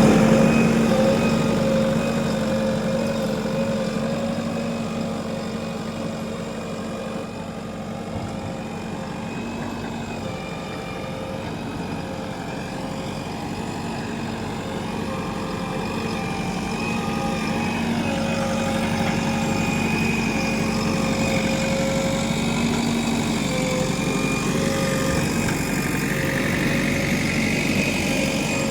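Diesel engine of a JCB 3DX backhoe loader running steadily, its level easing off in the first few seconds and rising again towards the middle.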